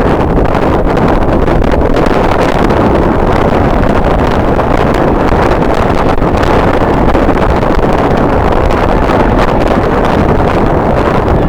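Strong wind buffeting the microphone: a loud, steady rush of noise with no distinct tones, unbroken throughout.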